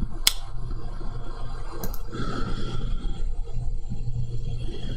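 Steady whir of a 3D printer's cooling fans, with a sharp click about a third of a second in, a smaller click near two seconds, and some scraping handling noise.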